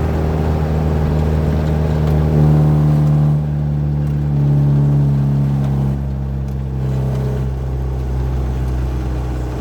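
Truck's diesel engine running under way, its note stepping up and down in pitch and loudness a few times as it pulls.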